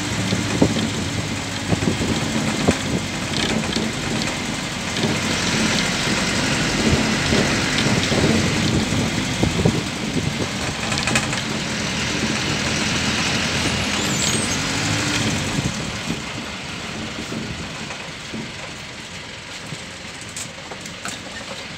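Motor vehicle engine running with road noise, heard from inside the moving vehicle, with frequent knocks and rattles over the first half. It grows quieter over the last several seconds, as if the vehicle eases off or slows.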